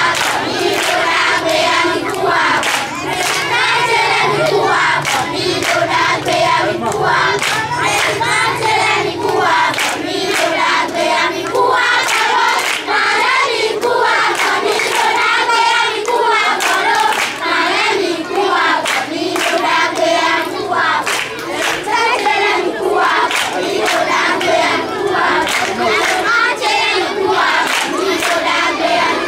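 A large group of children singing together in chorus while clapping their hands along.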